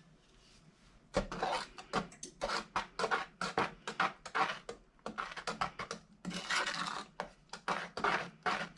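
A utensil scraping around the bottom of a heavy saucepan as the fudge mixture of butter, sugar and evaporated milk is stirred constantly to keep the milk from burning. The strokes begin about a second in and repeat about twice a second.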